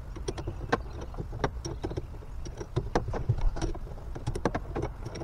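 Irregular metal clicks and taps of a boat's mechanical steering link arm being fitted and fastened to the outboard, over a steady low rumble.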